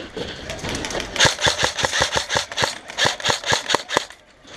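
Airsoft electric rifle, a CYMA AKS-74U, firing a rapid string of sharp clacking shots, about six or seven a second with a couple of short breaks, starting about a second in and stopping shortly before the end.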